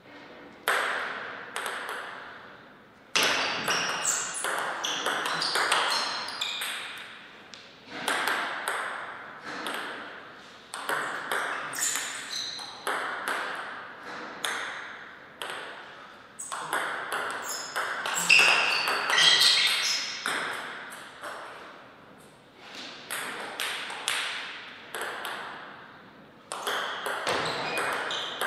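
Table tennis rallies: the ball clicking rapidly off the paddles and bouncing on the table in runs of a few seconds, with short pauses between points.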